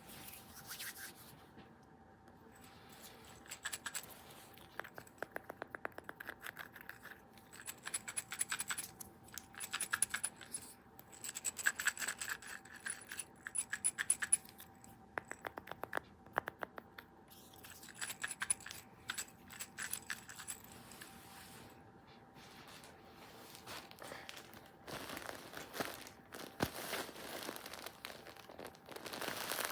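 Rapid scratching and tapping, coming in bursts of quick clicks with short pauses between, over a faint steady hum; near the end it gives way to a denser rustling crinkle.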